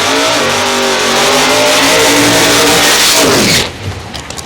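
Drag race car engine revving hard: its pitch climbs, holds high and loud with a strong hiss for about three seconds, then falls away and cuts off abruptly near the end.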